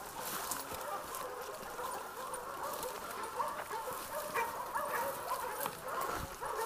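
Hog-hunting bay dogs barking and baying, several voices overlapping, a sign they are holding a wild hog at bay. Brush crackles and snaps with scattered short clicks as someone pushes through the woods.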